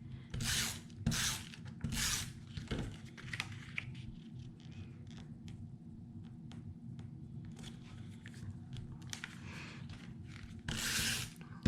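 Paper and cardstock being handled and slid across a work surface: three short swishes in the first two seconds, fainter rustling after, and a longer swish near the end.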